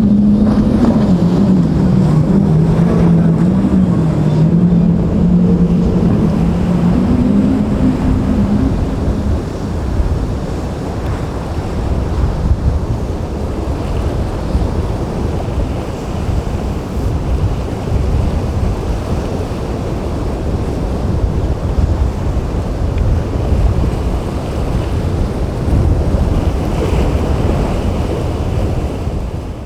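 A boat engine running, its pitch wavering up and down, fades out after about nine seconds. Steady wind on the microphone and the rush of waves and surf carry on after it.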